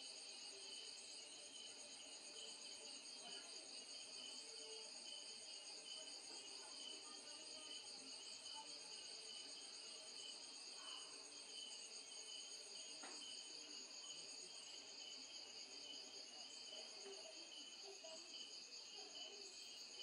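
Faint night chorus of insects: several steady, high-pitched trills overlapping without a break.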